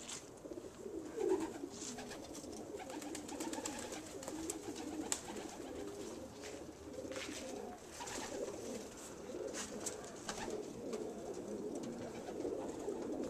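Racing homing pigeons cooing, several birds at once in a continuous, overlapping chorus, with a few faint clicks scattered through.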